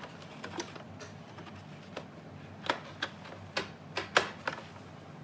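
Series of sharp plastic and metal clicks and taps, about eight at irregular spacing, loudest about four seconds in, as a 2.5-inch SSD in its mounting bracket is fitted and seated into the laptop's drive bay.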